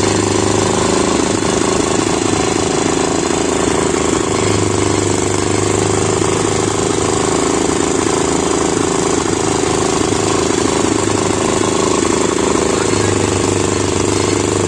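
A sugarcane juice crusher's small engine running steadily, belt-driving the roller press while cane is fed through. It makes a loud, even, fast-pulsing mechanical drone, and its low hum swells a little twice.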